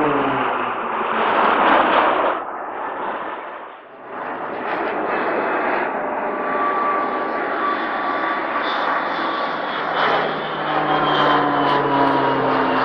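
Aircraft engine noise. A loud pass with falling pitch stops abruptly about two seconds in. After a dip, a steady engine drone follows, with falling tones again near the end as another aircraft goes by.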